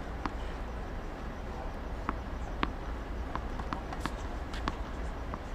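Scattered sharp knocks and taps on a hard tennis court, tennis balls bouncing and shoe steps, about eight in all and bunched in the middle, over a steady low hum.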